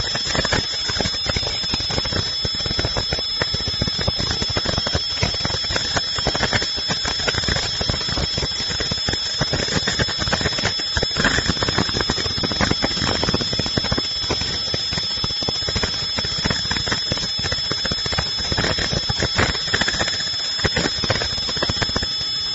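Industrial machine running continuously: a fast, even clatter with a constant high-pitched whine over it.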